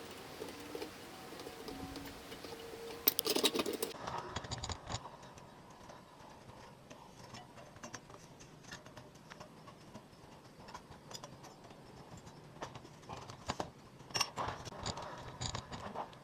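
Quiet, irregular metal clicks and scraping from hand tools working the thin steel petals of a forged rose, folding and texturing them, with a louder clatter of clicks about three seconds in.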